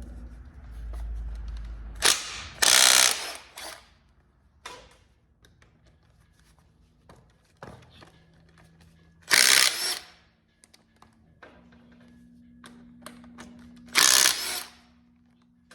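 Power tool spinning out the bolts of a Dana 80 differential cover in three short, loud bursts, with small clicks and taps of metal parts between.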